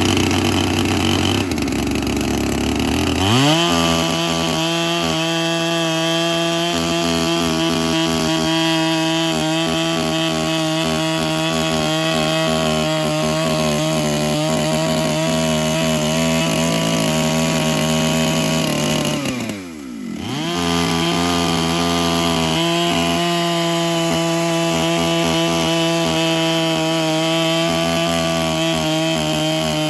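Electric chainsaw with a ripping chain milling a log lengthwise in an Alaskan-style mill jig. The saw's whine climbs in pitch about three seconds in and holds steady, then briefly drops and spins back up about two-thirds of the way through.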